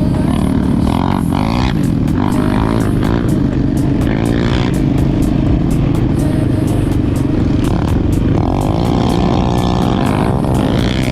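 ATV (quad bike) engine running under changing throttle while riding off-road, its pitch rising and falling.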